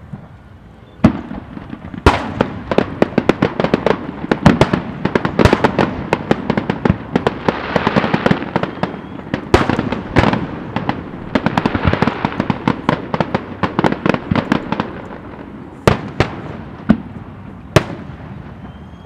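Aerial fireworks shells bursting: a single bang about a second in, then a dense barrage of rapid bangs, thinning to a few separate bangs near the end.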